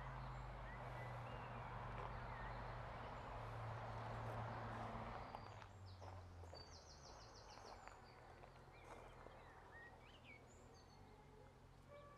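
Faint outdoor ambience: a low steady hum with a rushing noise that fades out about halfway, and small birds chirping, with a quick trill about seven seconds in.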